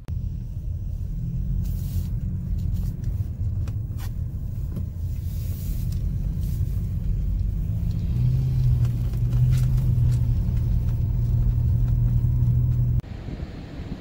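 Car cabin noise while driving on a snow-packed road: steady low engine and tyre rumble, with a steady engine hum joining in about eight seconds in. It stops abruptly about a second before the end.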